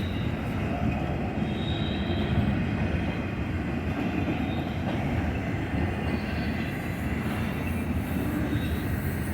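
Union Pacific freight train rolling slowly past, a steady rumble of wheels on the rails with a few faint, brief high wheel squeals.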